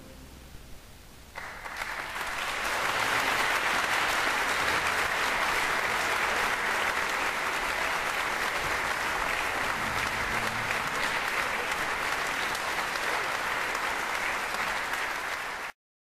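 Concert hall audience applauding an orchestra, starting about a second and a half in, holding steady and cutting off abruptly near the end.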